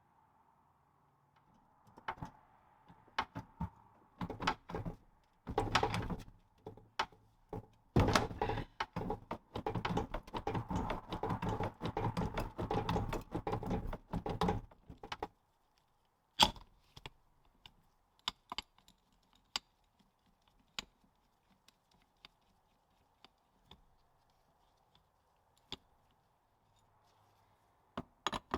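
Workshop tool clatter while fitting a pinion bearing into a Land Rover differential housing: scattered clicks and knocks, a long run of rapid tapping in the middle, one sharp knock just after, then occasional light clicks.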